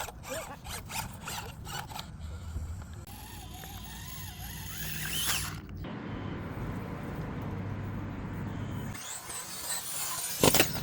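Small RC crawler's electric motor and gear drivetrain whining and squeaking as it crawls, with clicking and knocking of the chassis and tyres over the course: a run of clicks at first and a burst of loud clicks near the end.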